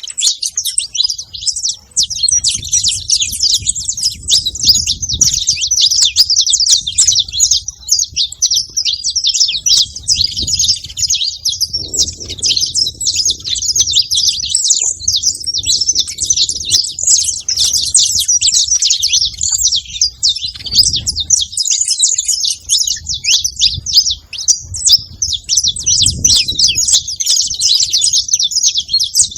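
Saffron finch singing: a fast, unbroken stream of high chirps and trills. A faint low rumble comes and goes underneath.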